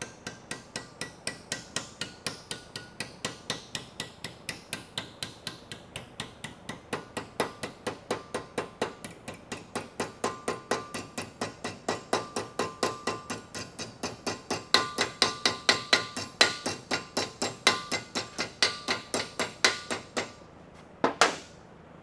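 A hammer beating a small steel sheet-metal patch into shape: a steady run of ringing metal-on-metal blows, about three to four a second, growing louder in the last part. The blows stop about two seconds before the end, and one last single knock follows.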